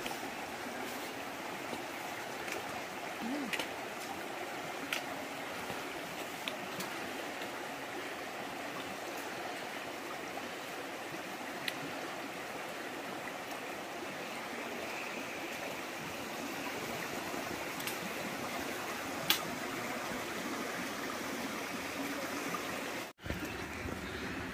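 Stream water running steadily, with a few faint sharp ticks scattered through it; the sound drops out for an instant near the end.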